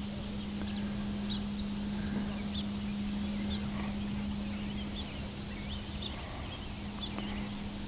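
Quiet outdoor ambience: scattered short, high bird chirps over a steady low hum.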